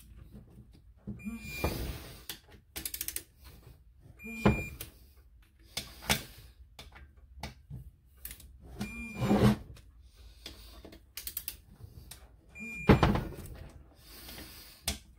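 Torque wrench tightening cylinder head bolts on a Yamaha 701 two-stroke engine: irregular ratchet clicks and metal knocks, with a quick run of ratchet clicks about three seconds in and louder knocks about halfway and near the end.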